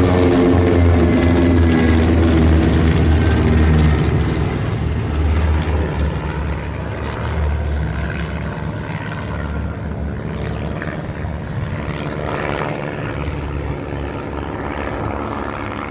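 SIAI-Marchetti SF.260 propeller aircraft flying past: engine and propeller loud for about four seconds, then fading away as it moves off.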